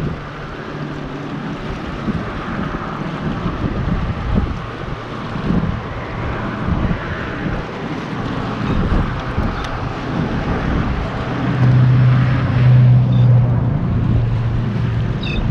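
Wind buffeting the microphone above open water, with a steady low engine hum underneath that grows louder about twelve seconds in.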